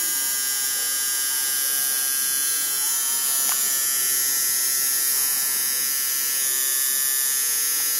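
Electric tattoo machine buzzing steadily as the artist tattoos.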